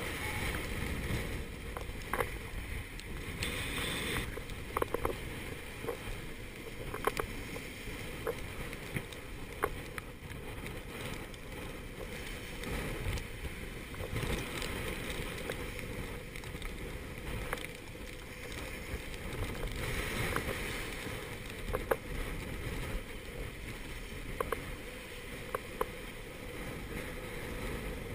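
Gale-force wind and breaking seas rushing around a small sailboat running downwind, a steady roar of wind and water with scattered sharp knocks through it.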